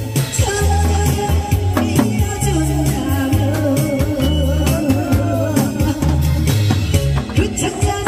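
Loud amplified music with a steady beat and a heavy, repeating bass line, and a singing voice over it.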